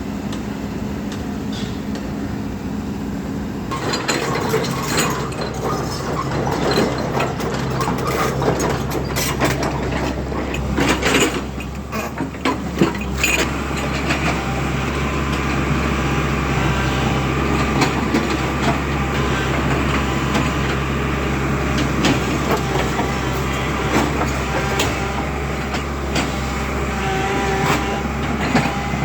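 Volvo crawler excavator's diesel engine running with a steady hum; from about four seconds in, a run of metallic clanks and knocks from the machine working, thickest in the middle and then settling.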